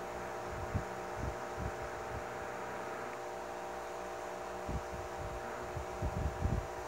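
Steady electrical hum of several fixed tones, with soft low bumps of handling here and there and a small cluster of them near the end, as a jumper wire is soldered onto the TV panel's circuit board.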